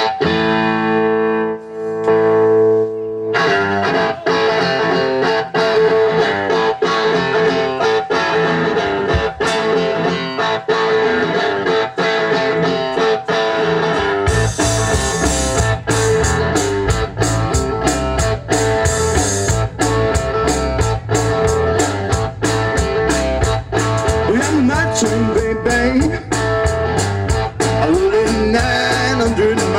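Blues-style guitar music: a held chord opening into a steady strummed rhythm, with a heavier low rhythm part, like bass and drums, joining about halfway through.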